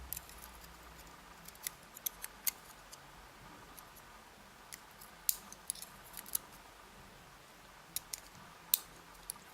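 Light, sharp metallic clicks and taps, a dozen or so at irregular intervals, as the small driver pins of a gutted dimple lock are handled and set down.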